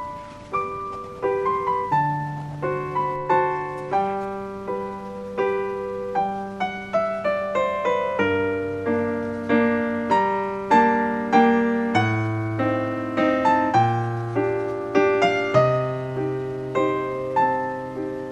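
Background piano music: a melody of many short notes over lower held bass notes.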